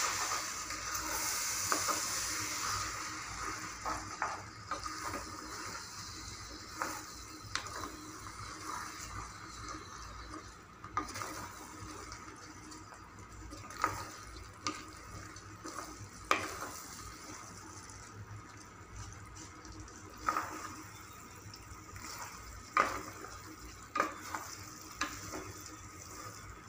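A spatula stirring rice through a sizzling masala in a pressure cooker, scraping and clinking against the pot at irregular moments. The frying hiss is strongest in the first few seconds and then settles lower.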